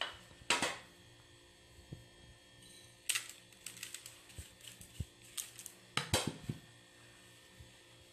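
Light clicks and taps of a spoon against a mixing bowl as spices are tipped onto ground meat, in short clusters about half a second in, around three seconds in and around six seconds in.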